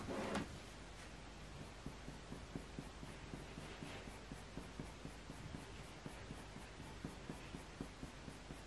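A Faber-Castell Polychromos coloured pencil making tiny, light fur strokes on hot-press watercolour paper: faint, short strokes, a few a second, with the pencil barely pressed.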